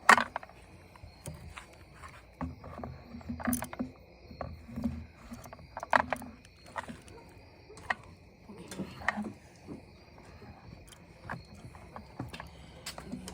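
Scattered clicks, taps and knocks from hand tools and plastic parts of a string trimmer being handled during its service, irregular and of uneven loudness.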